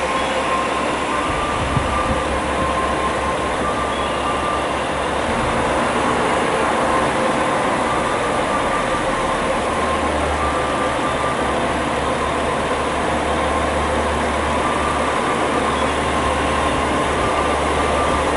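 KiHa 47 diesel railcar rolling slowly into a station platform: a steady diesel engine rumble with wheel and running noise, growing louder as the train draws close and passes.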